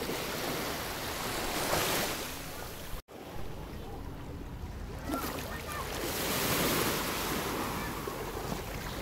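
Small sea waves washing in over sand at the shoreline, the wash swelling twice. The sound cuts out for an instant about three seconds in.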